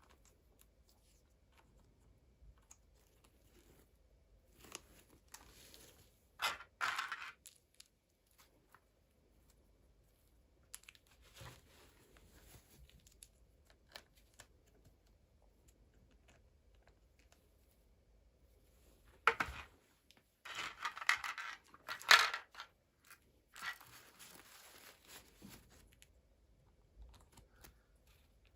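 Packaging being torn open by hand in short bursts, once about seven seconds in and again in a longer run from about 19 to 25 seconds in, with faint handling noises between.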